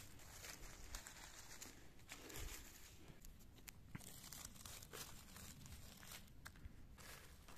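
Faint crinkling and rustling of dry leaves and twigs, with scattered small snaps, as a hand works through the forest leaf litter and pulls up a chanterelle.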